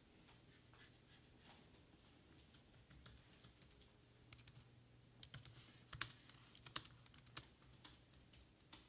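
Typing on a laptop keyboard: faint, scattered keystrokes, then a run of louder, quicker key taps from about five seconds in.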